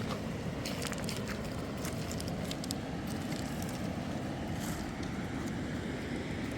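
Steady rushing noise with scattered small clicks and ticks.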